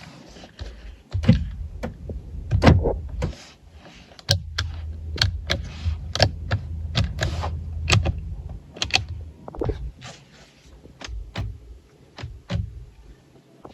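A 2023 Subaru WRX's cabin controls and doors being worked: an irregular run of clicks and thunks. A low hum runs underneath twice for a few seconds.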